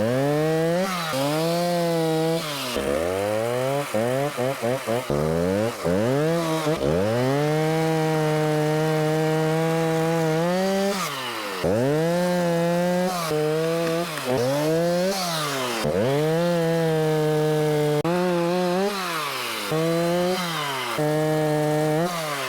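Stihl Farm Boss 290 two-stroke chainsaw limbing a felled pear tree: it revs up high, its pitch sagging as the chain bites into the wood, then falls back toward idle between cuts, about half a dozen times over.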